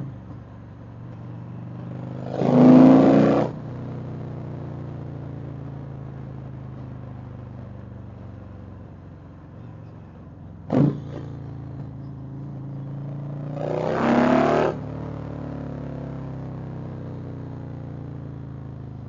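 Indian Chieftain V-twin motorcycle engine running while being ridden, swelling louder twice for about a second, with a sharp knock about eleven seconds in. The rider suspects a heavy cam from the way the bike sounds.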